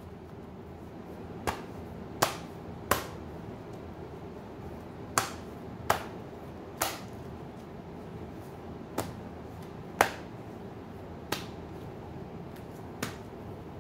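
Tarot deck being shuffled by hand, heard as about ten sharp card clicks spaced irregularly, roughly one to two seconds apart.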